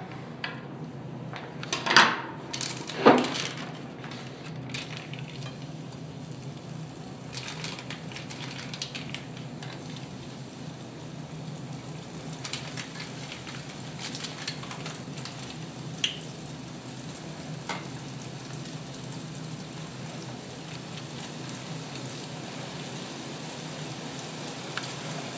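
Choux-dough rings frying in hot oil in a frying pan: a steady sizzle and bubbling. Two loud clatters come about two and three seconds in, with a few light clicks later.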